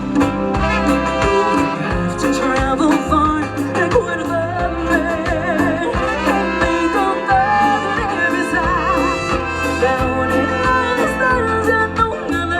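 A live band playing, with a steady bass beat under a wavering melody line; no words are sung.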